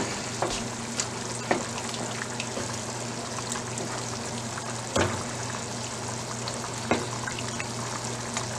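A wooden spoon stirring thick chili in a metal pot on a gas burner, over a steady hiss of the pot cooking. The spoon scrapes and knocks against the pot a few times.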